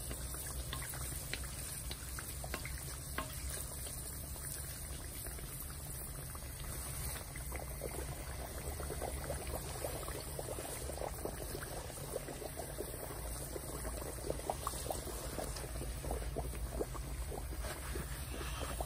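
Hot oil bubbling and crackling in a wok as a round of dough deep-fries and puffs up, with hot oil spooned over it from a wooden spatula. The crackling gets busier about a third of the way through.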